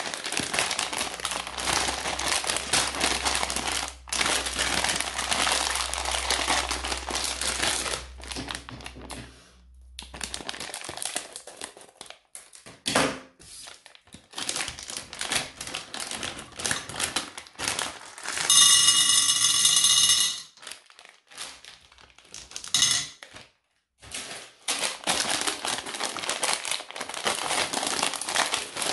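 Plastic candy bags crinkling and crumpling as they are handled, in bursts with short pauses. About two-thirds of the way through there is one loud rasp lasting under two seconds.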